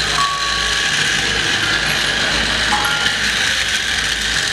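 Battery-powered plastic toy train running on its track, its motor and plastic gears making a steady whirring clatter.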